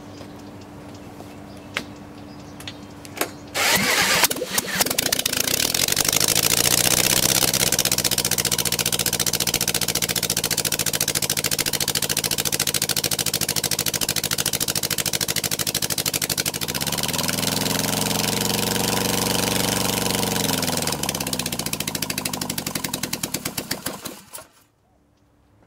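A bare Volkswagen engine spun over by a large electric power drill, catching almost at once and then running on its own. Partway through its revs rise and fall once, and near the end it is shut off, the firing pulses slowing to a stop.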